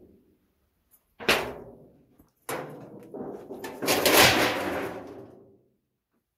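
Three loud knocks or bangs, each trailing off in a clattering rattle, the last and loudest about four seconds in and lasting over a second.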